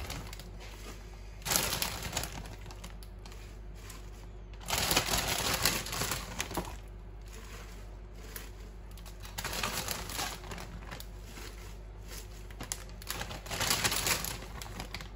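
Fresh spinach leaves rustling and a plastic bag crinkling as handfuls of spinach are pushed into a stainless-steel mixing bowl, in four bursts of crackling.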